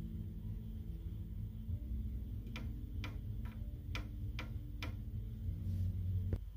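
Low sustained background music with a clock-like ticking beat, about two ticks a second through the middle, cutting off abruptly near the end.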